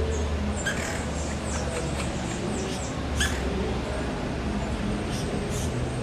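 Short, very high-pitched bird chirps, each sliding down in pitch, come in loose clusters, with one louder chirp about three seconds in. A steady low rumble runs underneath.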